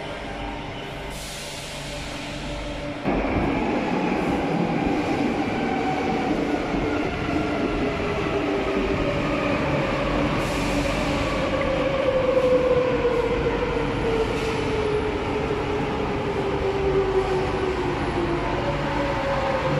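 Madrid Metro series 8400 electric train running through the platform, with rumbling wheels and a motor whine that falls slowly in pitch. The noise jumps up suddenly about three seconds in.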